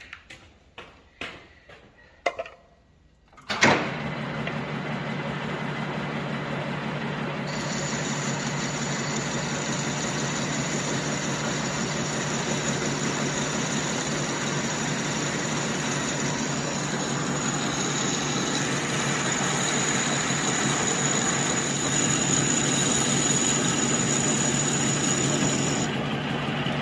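A few light clicks and knocks, then a manual metal lathe starts up about three and a half seconds in and runs steadily with a pitched hum. A high hiss rides over the running for most of the rest.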